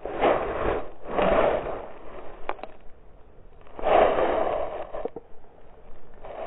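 Mountain bike crash heard on the rider's GoPro: four rough scraping, tumbling rushes of about a second each, with a few sharp clicks in between.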